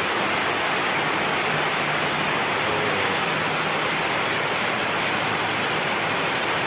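Rain falling steadily, a dense even hiss with no breaks.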